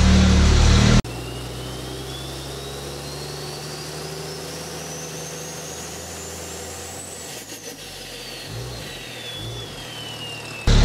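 A 6.7 L Cummins diesel in a Ram pickup runs for about a second and cuts off abruptly, giving way to a logo-intro sound effect: a low drone under a thin whistling tone that rises slowly for about six seconds and then falls back, with two soft low thuds near the end. The diesel comes back suddenly at the very end.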